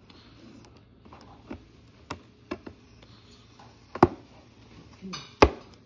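Hands picking at and prying open a cardboard toy box: scattered taps and clicks, the two loudest about four and five and a half seconds in.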